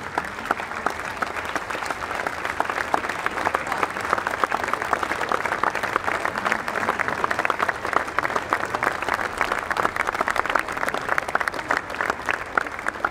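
Large stadium crowd applauding: many hands clapping in a dense, steady patter.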